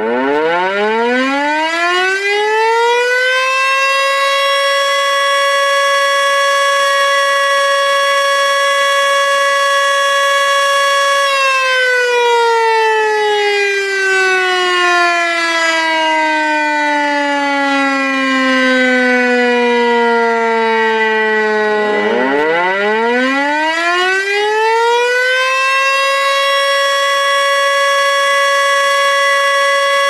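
Outdoor warning siren of the tornado or civil-defense kind. It winds up over about four seconds to a steady high wail and holds it. It then slowly winds down over about ten seconds, and winds back up to the steady wail near the end.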